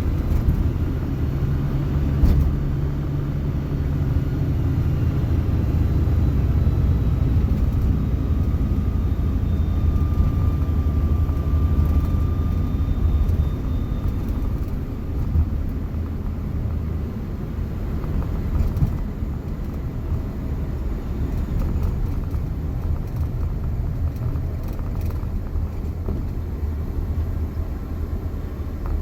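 Suzuki Jimny JA71 being driven: a steady low rumble from the engine and drivetrain, with a faint high whine over roughly the first half. The uploader puts the whine down to a failing transmission bearing.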